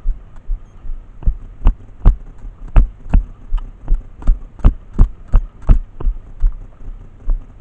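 Footsteps at a brisk walk or jog, a regular dull thump about two and a half times a second, growing fainter near the end.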